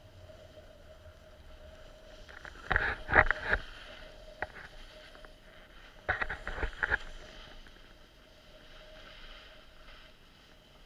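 Snowboard sliding over snow, with two short bursts of loud scraping clatter, about three seconds in and again around six to seven seconds, over a low steady rush and a faint steady whine.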